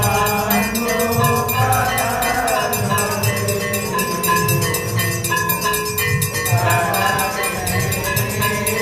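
Temple aarti music: voices singing a devotional hymn over fast, even ringing of bells and cymbals, with a pulsing low drum beat.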